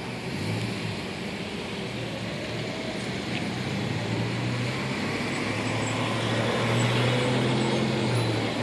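Motor vehicle engine running with a steady low hum that grows louder over the last few seconds.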